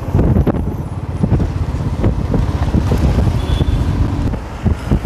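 Motorcycle riding along a road: its engine running under heavy wind buffeting on the microphone, an uneven low rumble throughout.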